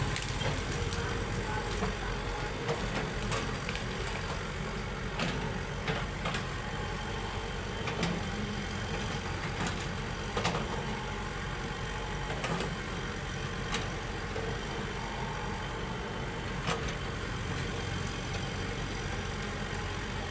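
Excavator's diesel engine running steadily, with scattered sharp clicks and knocks every few seconds.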